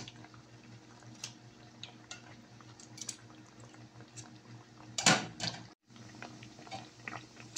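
Chicken burger patties deep-frying in a pan of oil, with a steady sizzle and scattered pops and crackles. About five seconds in comes a loud clatter, and the sound drops out for a moment just after.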